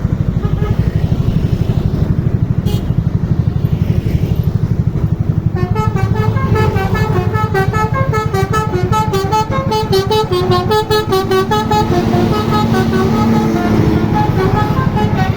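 A bus's multi-tone 'telolet' musical horn playing a quick melody of short stepped notes for several seconds, over a low, pulsing engine rumble. Fainter horn notes sound before the melody, and a held tone follows it.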